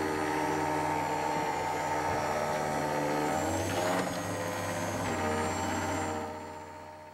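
Escalera electric stair-climbing hand truck's permanent-magnet motor and gearbox whining steadily as it climbs a step on a fully charged battery, with a brief shift in pitch about four seconds in, then fading out near the end.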